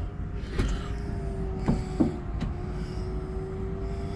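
2009 Ford Focus CC's folding hard-top roof opening: a steady motor whine with several sharp clicks and knocks in the first half as the roof mechanism starts to move.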